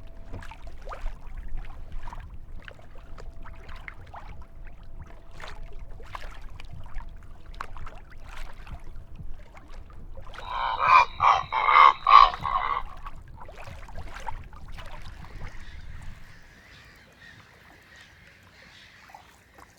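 Waterfowl calling: scattered short bird calls, with a loud run of rapid honking calls about ten seconds in, over a low rushing noise of wind or water that fades away near the end.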